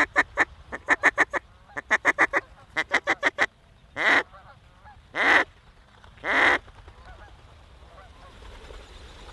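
Mallard duck call blown by a hunter: four quick runs of short, sharp quacks, then three long drawn-out quacks about a second apart.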